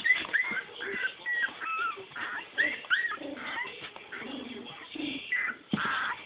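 Four-week-old Cavalier King Charles spaniel puppies whimpering and squeaking: a quick run of short, high-pitched cries, with a longer cry near the end.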